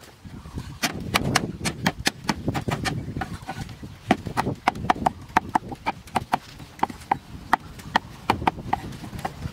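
Meat cleaver chopping green onions on a thick round wooden chopping block: a steady run of sharp knocks, about three a second, starting about a second in.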